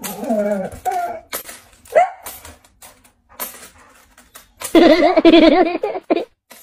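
A dog whining and howling: short wavering whines at the start, a brief rising yelp about two seconds in, then one long wavering howl of about a second and a half near the end.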